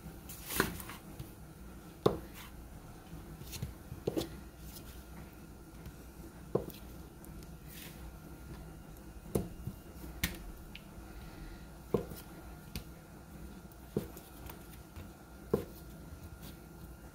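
Chef's knife slicing down through a soft block of processed cheese and knocking against a plastic cutting mat on the counter, one sharp tap every second or two as the block is cut into cubes.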